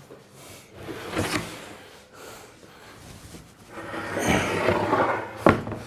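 Newspaper rustling and a wooden panel sliding across the workbench as boards are laid on one another, with one sharp knock near the end.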